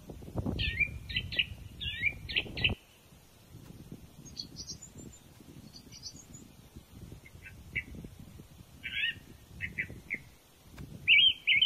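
Small songbirds chirping and twittering in short, quick phrases, with the loudest chirps near the end. A low rumbling noise runs under them for the first few seconds and stops abruptly.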